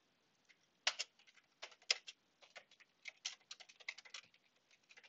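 Computer keyboard typing: a run of irregular key clicks that starts about a second in.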